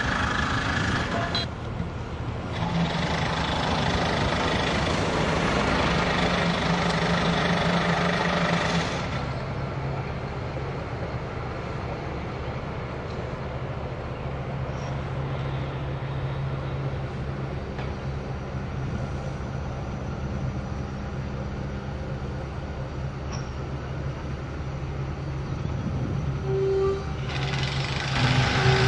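Heavy machinery engine running on a crane assembly site, with a steady low hum under a noisy wash of site sound that changes abruptly a few times.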